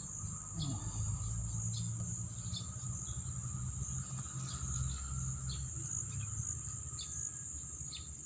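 Steady high-pitched insect chorus, with short chirps now and then and a low rumble beneath.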